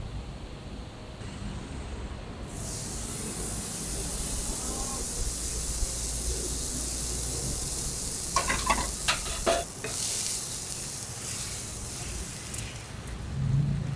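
Crepe batter sizzling on a hot round crepe griddle as it is poured and spread with a wooden spreader; the hiss starts suddenly a couple of seconds in. A few sharp clicks come about two-thirds of the way through.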